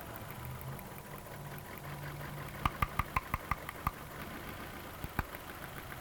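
Misfiring car engine idling, with a quick run of about seven sharp snapping clicks a little under halfway through and two more near the end. The clicks are high-voltage spark arcing out of the cylinder 2 ignition coil, the faulty coil behind the misfire.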